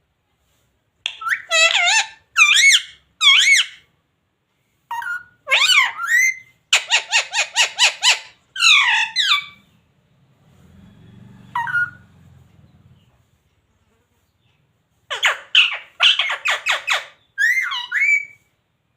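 Indian ringneck parrot calling in three bouts of loud, pitch-bending squawks and chatter, one bout holding a fast run of about five repeated notes a second.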